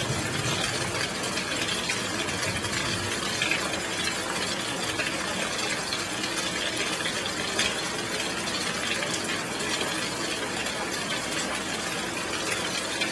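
Heavy rain falling steadily, an even wash of noise with scattered drop ticks.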